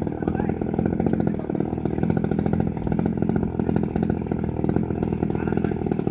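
55cc two-stroke petrol engine of a large radio-controlled model plane running steadily on the ground, a fast, even buzz with no change in speed.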